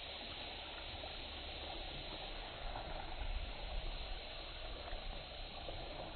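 Steady wash of sea surf against shore rocks, with a low, uneven rumble swelling about two and a half seconds in.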